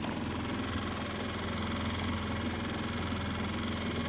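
Boat motor running steadily at low speed, an even hum with no changes.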